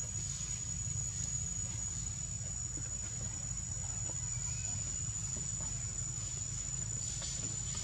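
A steady, high-pitched insect drone, one unbroken whine, with a low steady rumble underneath.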